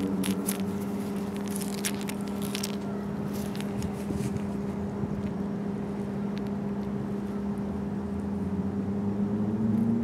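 Small metallic clicks and scrapes of treble hooks and split rings being worked on a plastic fishing lure during the first few seconds, over a steady low mechanical hum.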